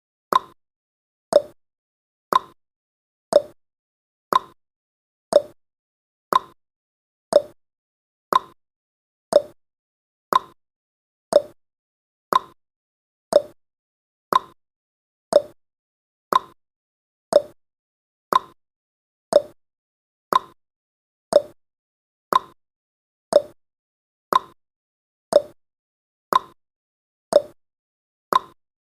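Clock-ticking sound effect of a countdown timer: one short tick each second, alternating a higher and a lower tick like a tick-tock.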